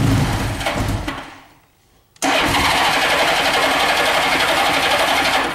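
1982 Honda Gold Wing GL1100 flat-four engine being cranked on its electric starter with the choke on; the cranking dies away about a second in, and after a short pause it turns over again loudly for about three seconds. The starter is the part the owner says has just started giving him problems.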